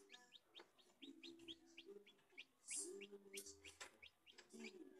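Newly hatched chicken chick peeping: a quick run of short, high, falling cheeps, several a second. It is quiet, over a faint low hum that comes and goes.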